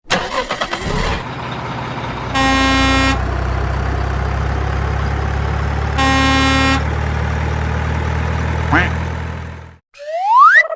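Cartoon vehicle sound effects: a burst of clicks, then a steady low engine hum with two horn honks, each under a second, and a rising whistle near the end.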